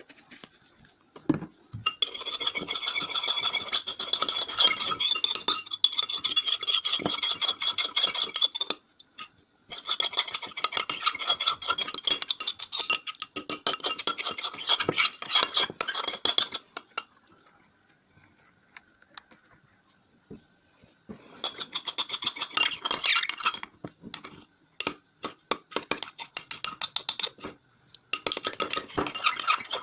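A utensil stirring and scraping round a bowl as slime ingredients (glue, soap and borax solution) are mixed, in several bouts of fast scraping a few seconds long with short pauses between.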